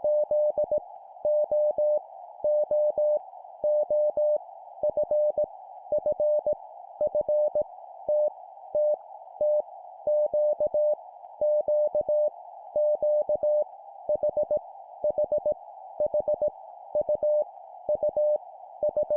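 Morse code (CW) at 17 words per minute: a single steady tone keyed into dots and dashes, each random letter sent three times in a row before the next, over a steady narrow band of background hiss.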